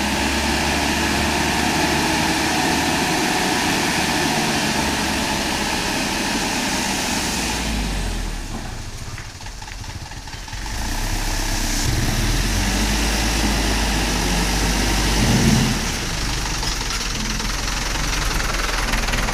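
Diesel engine of a Mitsubishi Fuso dump truck running steadily while the hydraulic hoist raises the tipper bed to dump soil. The engine drops back for a few seconds about halfway, then picks up again.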